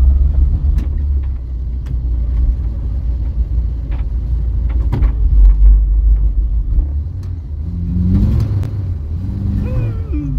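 Vauxhall Viva under way, heard from inside the cabin: a steady low engine and road rumble that eases off about seven seconds in, with a few light knocks and clicks.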